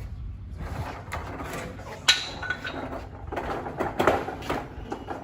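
A sharp metallic clank about two seconds in that rings briefly, among lighter knocks and rattles.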